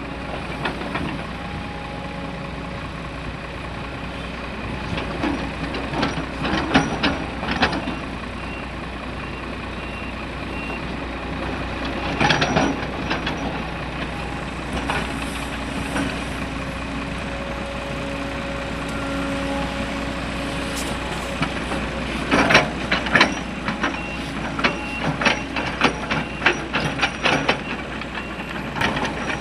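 Heavy diesel machinery running steadily, with several bursts of clattering and banging as material is loaded into a dump truck. A truck's reversing beeper sounds for a few seconds midway.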